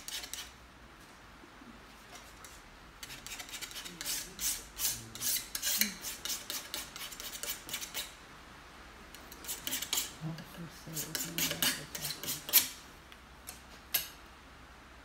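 Paint being worked onto a stretched canvas in runs of quick scraping, rubbing strokes, with two sharp taps near the end.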